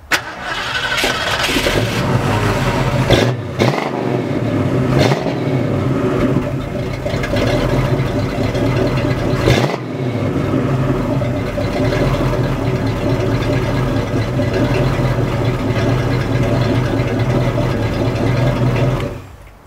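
1967 Ford Mustang's 302 V8 fires up and runs through freshly fitted Flowmaster 40 Series chambered mufflers, with a deep, steady exhaust note. It gives a few short throttle blips in the first ten seconds, held below full throttle. The engine sound stops abruptly near the end.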